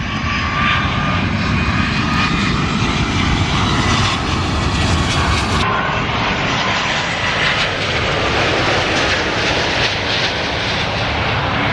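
Jet airliner landing, passing low overhead on its approach to the runway: loud, steady engine noise with a high whine over a deep rumble.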